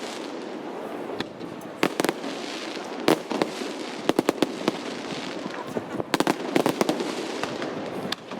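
Fireworks display going off: a rapid, irregular run of sharp bangs and cracks over a steady background wash, with dense clusters of reports about three seconds in, again around four to five seconds, and from about six to seven seconds.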